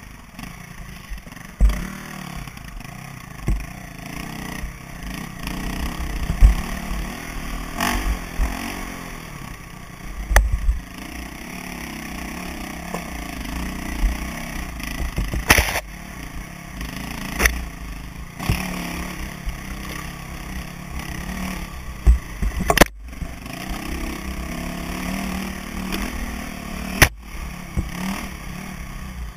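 KTM enduro dirt bike engine revving up and down as it is ridden over rough single track, heard from a helmet camera with wind buffeting the microphone. Sharp knocks and clatter from bumps and brush come now and then, the loudest about two thirds of the way in.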